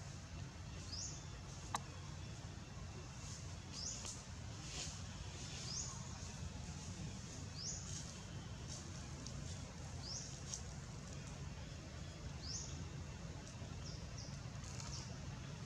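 Short, high, falling chirps from a small bird, one every second or two, over a steady low rumble of outdoor background noise. A single sharp click sounds about two seconds in.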